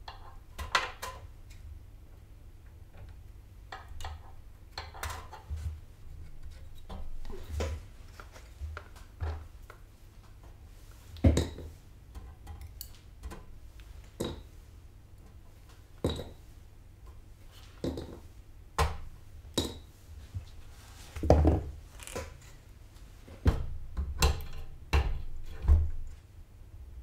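Irregular light clicks, taps and clinks of desoldering work on a motherboard: a soldering iron and hand tools against the circuit board, and small pulled capacitors being handled. A few louder knocks stand out about midway and near the end.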